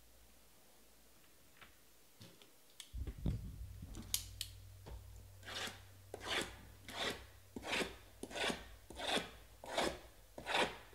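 Repeated rasping strokes of a hand working over shrink-wrapped cardboard card boxes, starting about three seconds in and settling into an even rhythm of roughly three strokes every two seconds.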